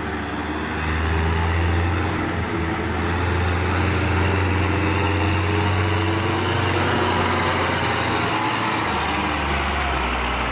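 Belarus tractor's diesel engine running hard under a heavy trolley load, a steady low engine note that grows a little louder about a second in.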